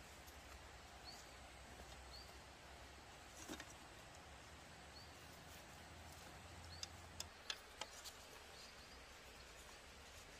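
Quiet forest near silence with faint, sharp clicks and taps of bamboo strips being handled and laid on the ground, one about three and a half seconds in and a quick cluster of four or five about seven to eight seconds in. Faint, short high chirps recur every second or two in the background.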